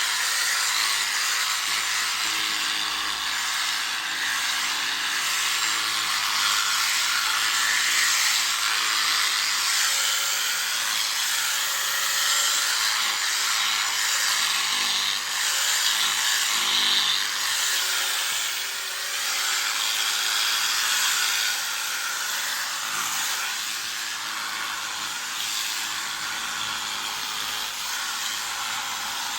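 Electric sheep shears running steadily while cutting through a sheep's fleece.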